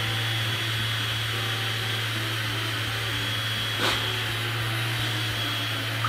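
Small battery-powered blower fan of a miniature wacky waving inflatable tube man running steadily, a low hum with a high whine over it, with one brief tap about four seconds in.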